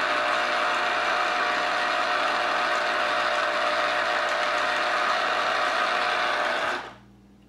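Small electric citrus juicer's motor running as a lemon half is pressed down onto its spinning reamer, a steady whir that stops suddenly near the end when the pressure is released.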